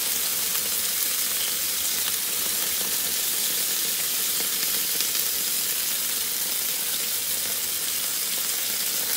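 Chicken kabab skewers frying on a hot flat tawa griddle: a steady sizzle.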